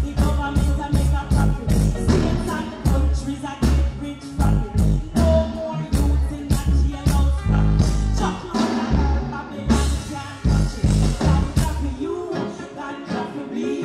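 Live reggae performance through a stage sound system: a woman sings into a microphone over a steady drum beat and a strong bass line. The bass drops out about twelve seconds in, leaving the voice and lighter backing.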